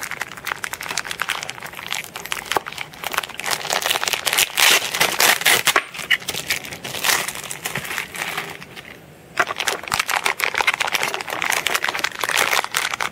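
Clear plastic packaging crinkling as it is handled, a dense crackle with a short lull about nine seconds in.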